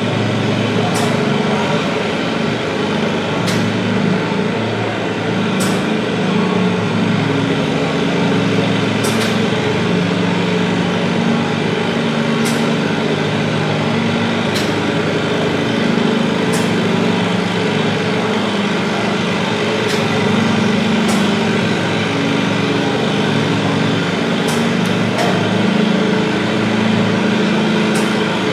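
Antique row-crop tractor engine running steadily under heavy load as it pulls a weight-transfer sled down the track.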